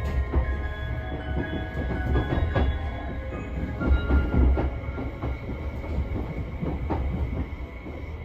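JR West 273 series electric train running, heard from inside the passenger car: a steady low rumble with irregular clicks from the wheels on the rails.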